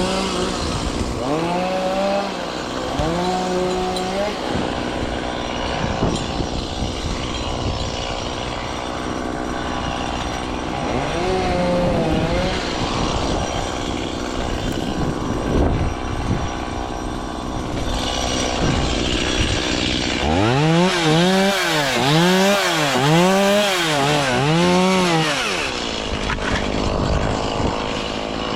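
Chainsaw engine running and repeatedly revving up and down, with a run of about five quick revs near the end.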